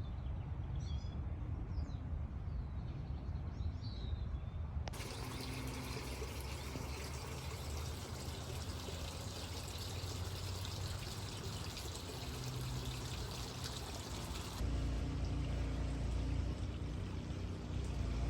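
Outdoor background noise with a few short bird chirps, then, after a sudden cut, a steady rushing noise; after a second cut it carries a heavier low rumble.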